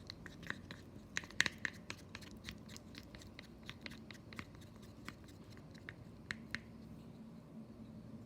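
Homemade slime of tapioca starch and hair conditioner being stirred and worked: irregular, fairly quiet sticky clicks and crackles that thin out and stop about six and a half seconds in.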